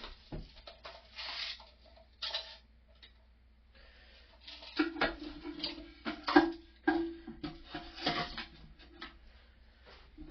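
Plastic toilet-tank valve parts being handled and fitted: irregular clicks, taps and knocks, with a low droning tone for several seconds in the middle.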